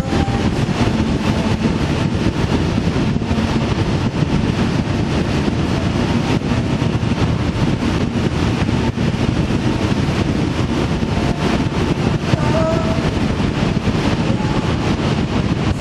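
A vehicle on the move, giving a steady, unbroken rumble of engine and road noise.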